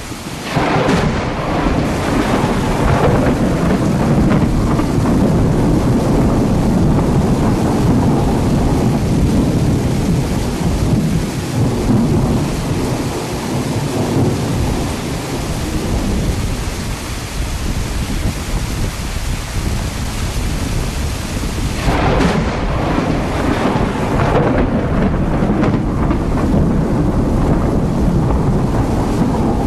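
Thunder rolling over steady rain. A long peal breaks out about a second in and rumbles on for many seconds, and a second peal breaks out about 22 seconds in.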